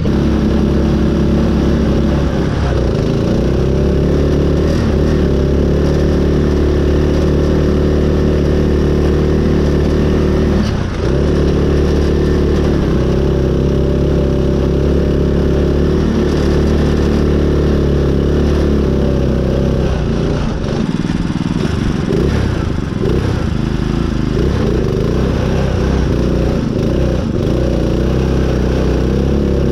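Small riding-mower engine on a modified mud mower running steadily under load. It dips briefly about eleven seconds in, and its revs waver up and down in the later part.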